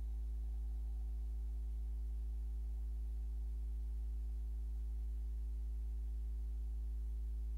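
Steady low electrical hum, a deep tone with evenly spaced overtones that never changes.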